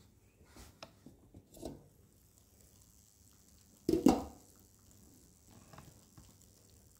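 Kitchen cookware being handled: a few light clinks, then a loud double knock with a short ring about four seconds in.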